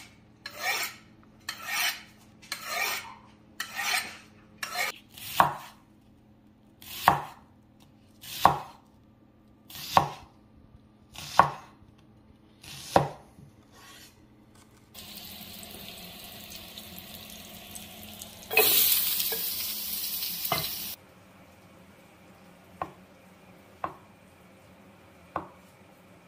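A cleaver is drawn down the rods of a V-shaped sharpener, making about eight scraping strokes roughly once a second. It then chops through onion onto a wooden cutting board, with sharp knocks about every second and a half. A stretch of hissing follows, loud for about two seconds, then a few lighter chops through mushrooms.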